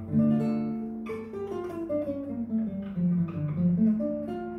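Classical nylon-string guitar fingerpicked: a line of single plucked notes stepping downward and then back up, over a bass note left ringing.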